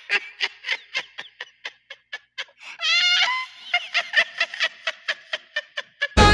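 A man laughing hard, close to the microphone: a long run of short "ha" bursts, about five a second, with a drawn-out higher laugh about three seconds in. Loud rock music cuts in right at the end.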